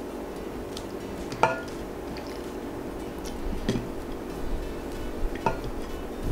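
A few sharp clinks of a hand knocking against a glass dish and a ceramic bowl while marinated prawns are moved between them. The loudest, with a short ring, comes about a second and a half in and another about five and a half seconds in, with a softer knock in between.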